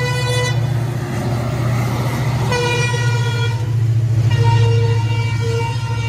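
Railway locomotive horn sounding in long held blasts: it breaks off about half a second in and sounds again at about two and a half and four and a half seconds, over the steady low rumble of a train.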